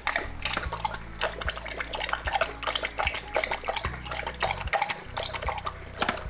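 A dog lapping water from a bowl, a fast, unbroken run of wet slurps and small splashes.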